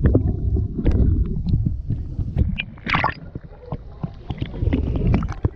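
Water sloshing and gurgling around kayaks, with paddle splashes and a scatter of short, sharp knocks.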